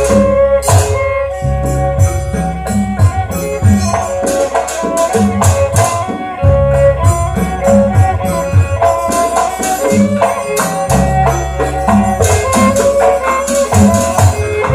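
Traditional Banyuwangi dance music: steady low drum strokes under ringing pitched notes, with sharp jingling percussion hits.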